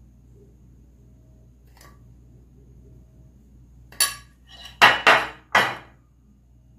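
Metal spoon knocking and scraping against a glass dish of dry cake mix: one sharp click about four seconds in, then three louder scrapes in quick succession.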